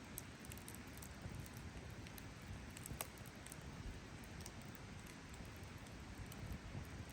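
Wood campfire burning quietly, with scattered small crackles and pops and one sharper pop about three seconds in.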